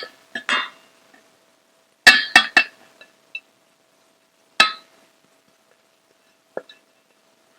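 A spoon clinking against a small bowl as the marinade spices are added: a few separate sharp clinks, a quick run of three about two seconds in, and a single louder clink past halfway.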